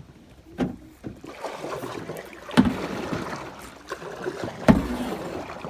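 Kayak paddle working the water: steady splashing and dripping, with three harder strokes about two seconds apart.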